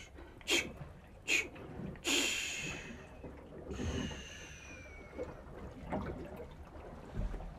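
A person breathing hard: two short, sharp breaths through the nose, then two longer hissing breaths, each falling in pitch as it fades.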